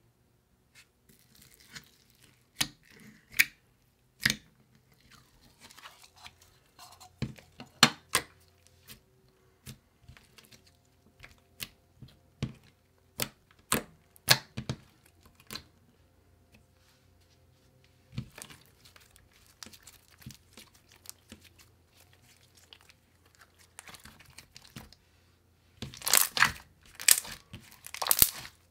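Thick, soft white slime with blue and purple foam beads being poked and squeezed by hand, giving scattered sticky clicks and pops. A louder run of close-set popping comes near the end as both hands press it.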